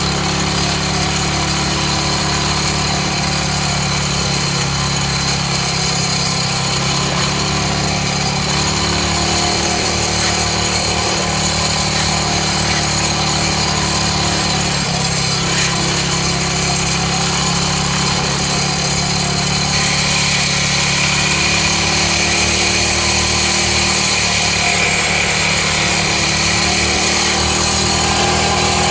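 Small Briggs & Stratton engine on a home-built antique-style motorcycle, running steadily under way as the bike is ridden, getting a little louder about twenty seconds in.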